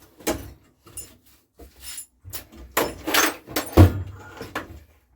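Rummaging through a box of small spare parts while searching for a replacement carburettor fuel diaphragm: a run of irregular rattles and clatters, with a heavier knock about four seconds in.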